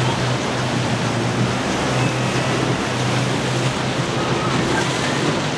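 Ocean surf and wind buffeting the microphone, with the steady low drone of boat engines underneath.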